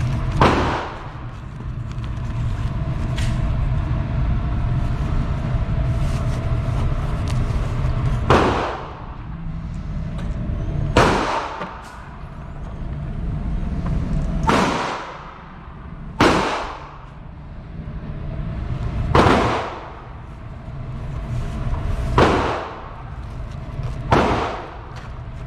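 Slow, deliberate 9mm pistol fire at a range: eight single shots spaced a few seconds apart, each with a short echoing tail, over a steady low rumble.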